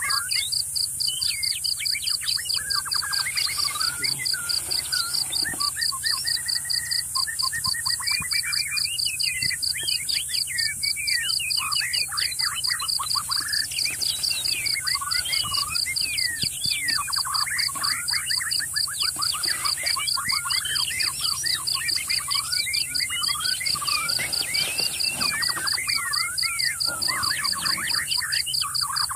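Wild birds chirping and whistling in many short, quick calls over a steady, rapidly pulsing insect trill.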